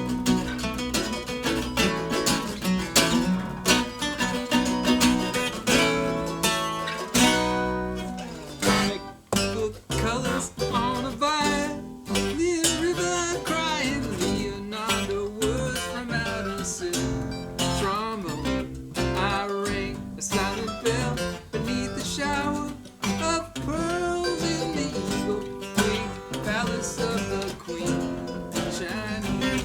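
Acoustic string band playing an instrumental passage: strummed acoustic guitar with picked lead lines over it.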